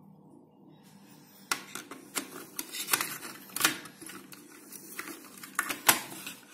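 High-speed steel twist drill bits clicking against each other and the plastic index case as they are slotted into the holder: a run of irregular clicks, with sharper ones about halfway through and near the end.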